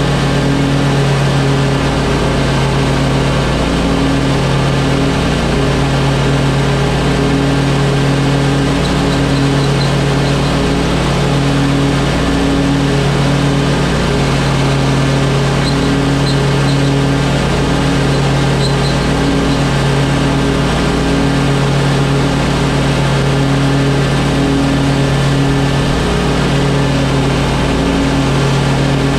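Commercial zero-turn mower's air-cooled engine running steadily while mowing grass, at an even pitch with no revving.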